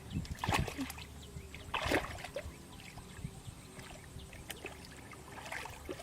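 Water splashing in a few short bursts: about half a second in, near two seconds, and again near the end.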